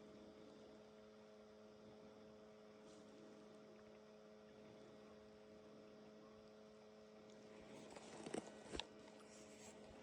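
Near silence with a faint steady hum of a few fixed tones, and two or three soft short knocks near the end.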